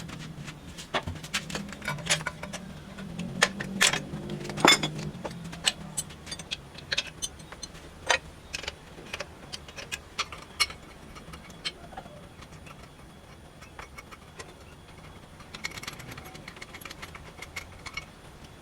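Irregular metallic clinks and taps from metal parts and tools being handled while a power hammer is dismantled. They come thick for the first ten seconds or so, then thin out to occasional clinks.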